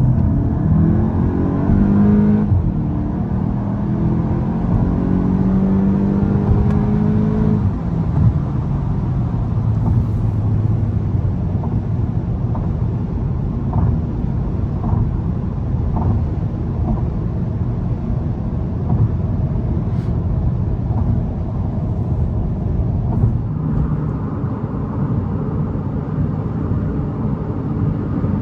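VW Golf 8 GTI's 2.0-litre turbocharged four-cylinder petrol engine (TSI) pulling hard, its pitch rising. It drops at an upshift about two seconds in, then rises again. After about seven and a half seconds it settles into a steady cruise with a low engine drone and road noise.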